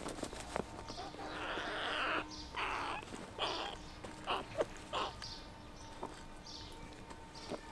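A fledgling leucistic carrion crow giving a series of harsh, noisy calls, about five in the middle few seconds, beak gaping. A few short sharp clicks come near the start and the end.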